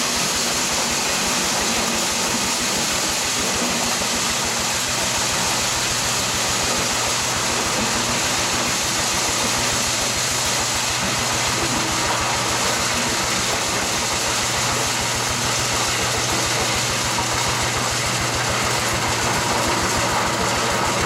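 Corn husker-sheller running, its drum spinning alongside a small tractor engine that is running steadily with a fast, even low chug.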